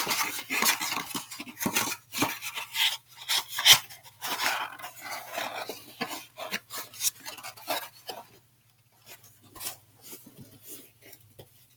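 Paper crinkling and rustling as the stuffing paper is pulled out of a new sneaker and handled, a quick irregular crackle that thins to a few faint handling noises in the last few seconds.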